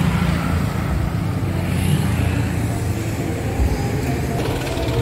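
Road traffic at close range: car and motorcycle engines running in slow, congested traffic, giving a steady low engine hum.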